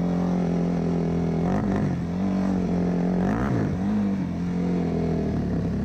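Sport quad bike (ATV) engine running steadily on the move, its revs briefly dipping and rising a few times.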